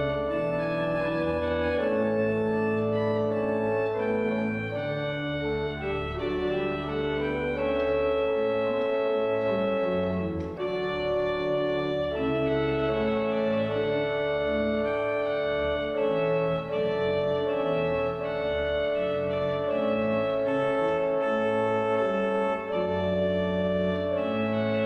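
Organ playing slow, sustained chords over a bass line that moves every second or two.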